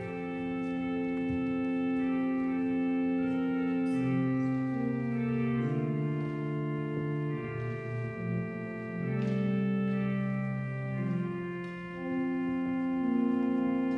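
Organ playing slow, held chords that shift every second or two.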